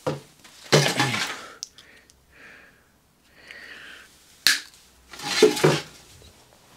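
Cutters trimming the excess off a steel-wire control rod: handling clatter, then a single sharp snap about four and a half seconds in as the wire is cut through.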